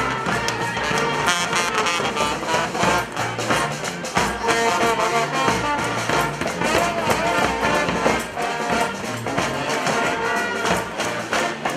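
Street brass band playing a tune, horns over drums with a steady beat.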